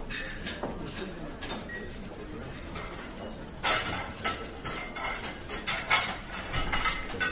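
Dishes and cutlery clinking and clattering, a scatter of sharp clinks that grows busier in the second half.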